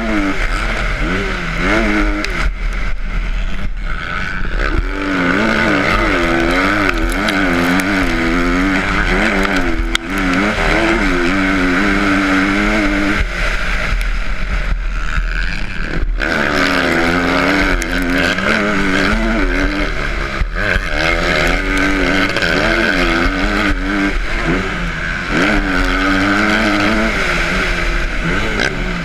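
Youth motocross bike's engine heard from on board, revving up and falling back again and again as the rider shifts and rolls off for corners, with short breaks in power about 10 and 16 seconds in.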